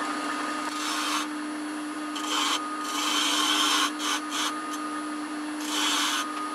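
Spindle gouge cutting a wooden box body spinning on a wood lathe, in about five short hissing passes, over the steady hum of the lathe motor.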